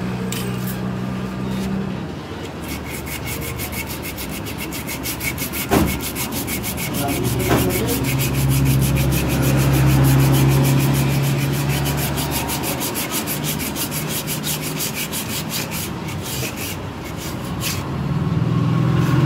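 Rapid, even back-and-forth rubbing strokes on a Maruti Alto 800's rear drum-brake shoes as they are cleaned by hand, several strokes a second, starting about two seconds in and stopping near the end. Two sharp knocks come about a third of the way in.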